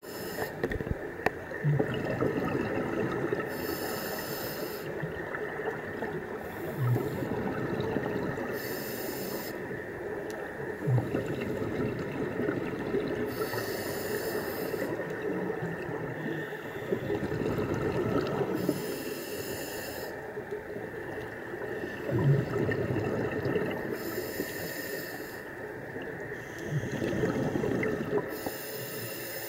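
Scuba diver breathing through a regulator underwater: a hiss of inhalation about a second long roughly every five seconds, six times, with bursts of exhaled bubbles gurgling in between.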